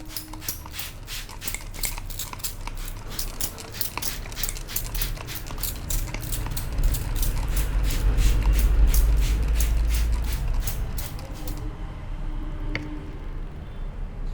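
A masseur's hands working quickly over the head in a head massage: a steady run of crisp, sharp strokes, about three or four a second, that stops a few seconds before the end. A low rumble swells and fades underneath in the middle.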